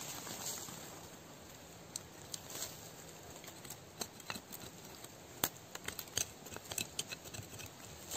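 A small hand tool scraping and picking at soil and leaf litter around the base of a tree trunk, in scattered short scrapes and sharp clicks.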